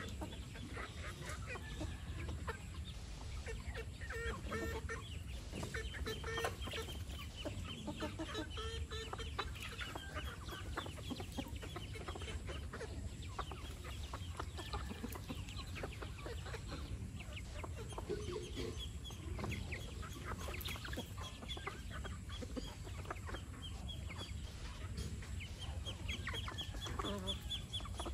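A flock of free-ranging chickens clucking as they forage, with many short, high peeping calls from chicks mixed in throughout.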